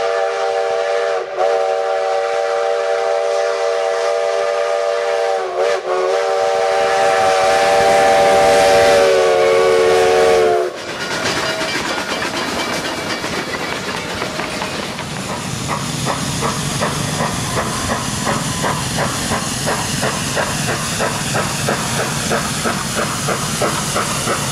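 Steam locomotive whistle blowing a long multi-tone chord, dipping twice, then cutting off about eleven seconds in; after it, steady steam hiss with a regular chuffing beat.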